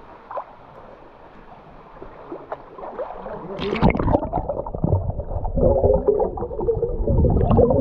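Water lapping and gurgling at an action camera held at the surface of a river pool, turning louder and muffled, a choppy underwater sloshing and bubbling, once the camera goes under about halfway through.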